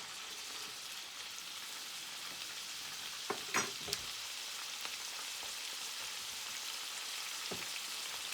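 Sliced peppers and onions sizzling steadily in hot vegetable oil in a frying pan, with a few short knocks about three and a half seconds in and one more near the end.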